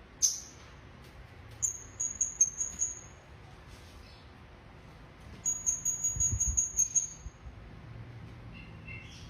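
A songbird calling in short runs of quick, high, clear notes. There is a sharp note just after the start, a run about one and a half seconds in, and a longer, faster run about five and a half seconds in. A low thump comes around six seconds.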